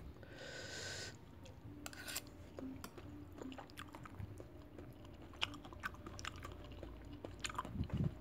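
Faint chewing of a mouthful of seblak, with scattered small clicks as a metal spoon scoops from the bowl. A brief hiss comes about half a second in.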